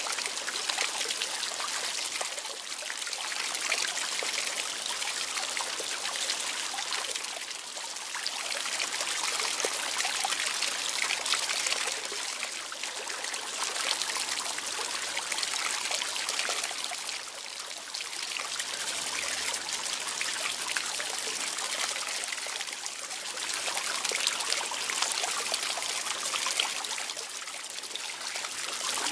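Steady trickling, splashing water, swelling and easing a little every few seconds.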